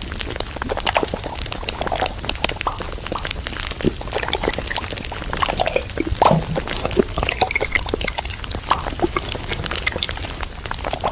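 Irregular clicks, knocks and rustles of containers and packaging being handled while a fridge is restocked.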